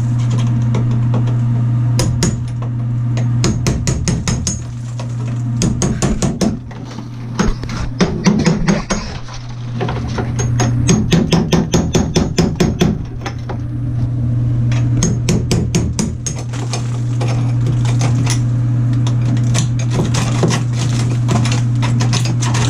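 Repeated hammer blows chipping away shower wall tile and its thick mortar bed, in irregular runs of quick strikes, over a steady low hum.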